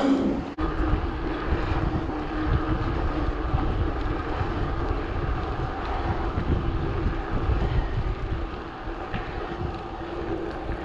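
Wind buffeting the microphone of a bicycle-mounted camera and tyres rolling on a tarmac trail while the bike is ridden, heard as a steady rumble with a faint constant hum.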